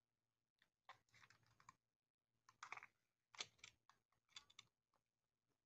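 Faint clicks and scraping from the case of a Minolta 460TX pocket camera being pried open by hand, in several short bursts.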